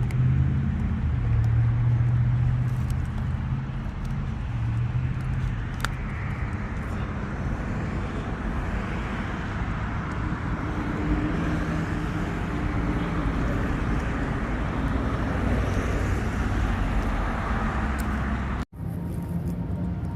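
A car engine running steadily nearby: a low hum whose pitch shifts a little, over outdoor background noise, with a momentary cut-out near the end.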